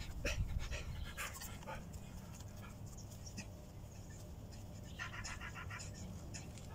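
A man panting heavily close to the microphone, out of breath after straining through a pull-up, loudest in the first second or so and then easing. A brief rapid chatter sounds about five seconds in.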